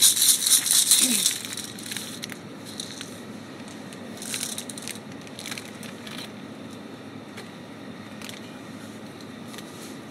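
Plastic sweet packaging crinkling as it is handled, loud for the first second or so, then only a few faint, scattered crinkles.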